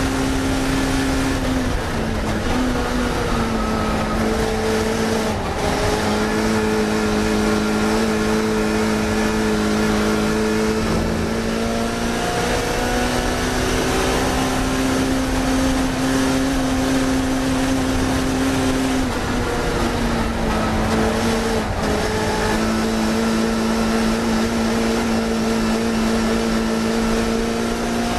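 A racing car's engine running at fairly steady revs, heard from on board the car, its note stepping down or up several times as the revs change.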